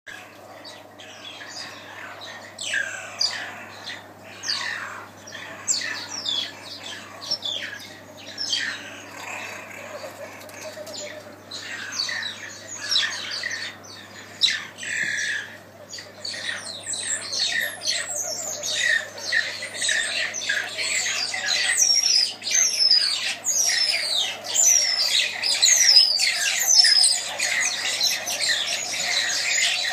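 Mongooses giving many short, high-pitched squeaks and chirps, each falling in pitch, during a territorial fight between troops. The calls come thicker and louder from about halfway through.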